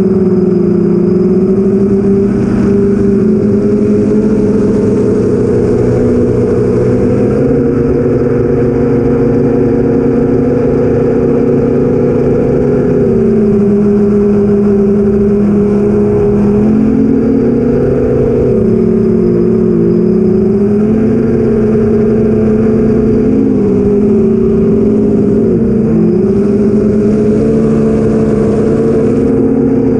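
Motors and 8-inch propellers of an iFlight XL8 quadcopter (BrotherHobby Avenger 2812 1115kv motors, Master Airscrew 8045 props) humming in flight, heard from its own onboard camera. The pitch steps up and down several times as the throttle changes.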